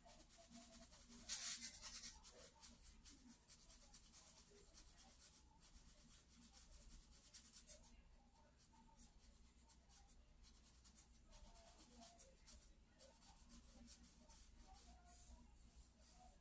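Charcoal stick scratching across sketchbook paper in faint short strokes. The strokes are loudest about a second in and lighter in the second half.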